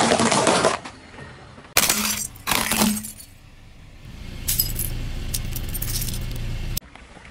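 Car tyre crushing things: a dense crunch of biscuits at the start, then two sharp cracks of hard plastic breaking. After that comes a steady low rumble with light clinking of broken plastic shards, cutting off suddenly near the end.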